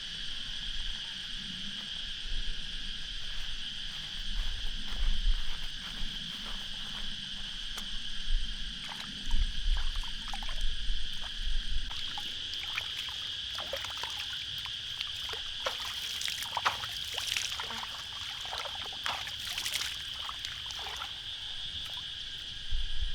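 A steady, high-pitched chorus of insects runs throughout. Scattered rustles and clicks come in the middle stretch, along with a few low bumps.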